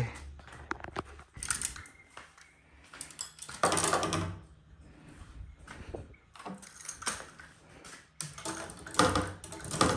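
Fishing rods and reels being handled and put away: scattered clicks, knocks and light clattering, with a few louder spells of rustling and rattling.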